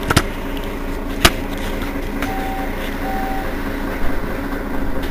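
Mercedes-Benz Citaro city bus idling at a stop, its rear-mounted diesel engine running steadily. Two sharp clicks come just after the start and just over a second in, and two short beeps sound about halfway through.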